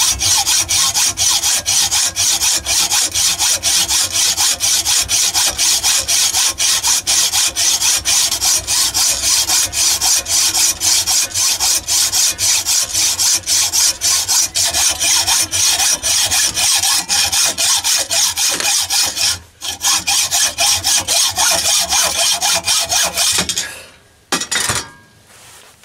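Hand hacksaw cutting through a steel MT2 Morse taper arbor clamped in a vise, in rapid, even back-and-forth rasping strokes. There is a brief break about three quarters of the way through, and the sawing stops near the end as the cut goes through.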